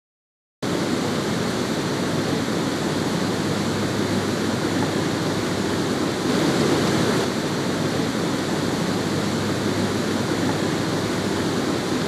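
Steady rush of water spilling over a low river dam and churning below it, swelling a little about halfway through.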